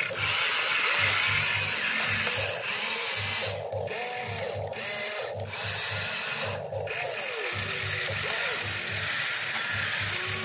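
Electric motors of a toy RC excavator whining as it works its arm and bucket in the stones, cutting out briefly a few times midway. Background music with a steady beat runs underneath.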